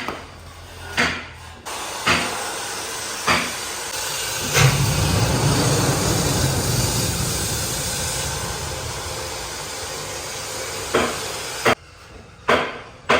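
Workshop tool sounds while a wooden joint is worked: a few sharp knocks, then a steady hissing machine noise that runs for about ten seconds, then more knocks near the end.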